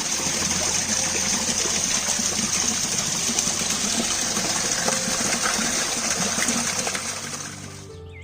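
Steady rush of flowing water, fading out near the end.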